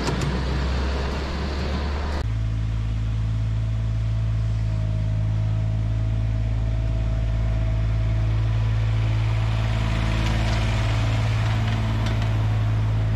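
A miniature railway train running past. First comes a rough rumble of passenger cars rolling on the 7¼-inch gauge track. About two seconds in it changes abruptly to a steady, low motor hum as the locomotive hauls its loaded cars by.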